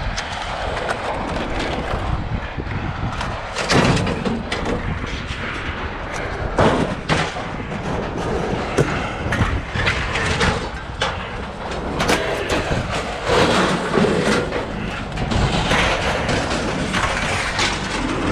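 Scrap metal being unloaded off a truck by hand: irregular thumps and clangs as pieces are thrown and dropped, a dozen or so over a steady low rumble.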